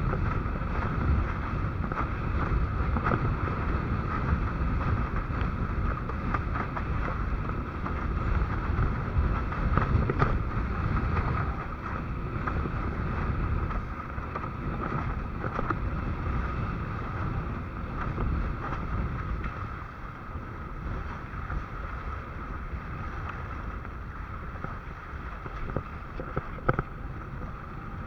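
Wind buffeting the microphone over a steady rush of water, as from a windsurf board moving over the sea, easing somewhat after about 20 seconds.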